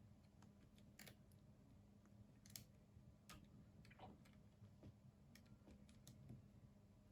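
Near silence with a faint steady hum, broken by about half a dozen faint, scattered light clicks of small phone parts and plastic pieces being handled and fitted together during reassembly.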